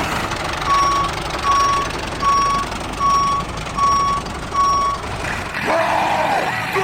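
Reversing alarm beeping six times at an even pace, a little under one beep a second, over a steady motor noise; near the end the beeping stops and yelling music comes back in.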